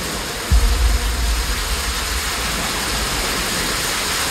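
Torrential storm rain and wind making a steady hiss, with a loud low rumble joining about half a second in.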